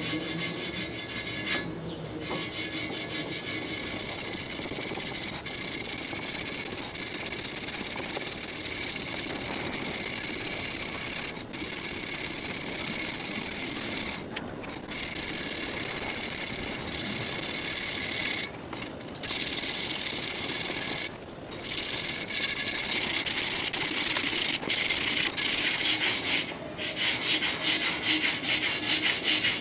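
220-grit sandpaper rubbed by hand over the bare cast aluminum of a Harley Sportster's alloy front wheel. The rubbing is continuous, with a few brief pauses, and louder in the last several seconds.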